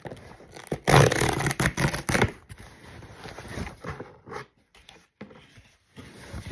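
A parcel being opened by hand: packaging torn and rustled. It starts with a loud noisy stretch of about a second and a half, about a second in, then softer scattered rustles and clicks.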